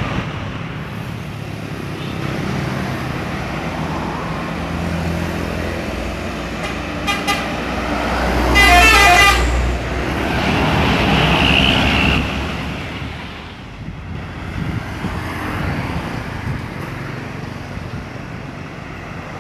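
A heavy road vehicle drives past with a low engine rumble and sounds a multi-tone musical horn. There is a short toot about seven seconds in, then a louder warbling horn call of a couple of seconds around nine seconds in as the vehicle goes by.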